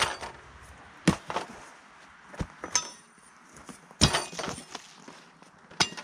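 Objects from pockets, a square steel frame and a small can among them, set down one after another onto a handsaw and hammer lying in grass. About six separate clinks and knocks, the loudest about four seconds in.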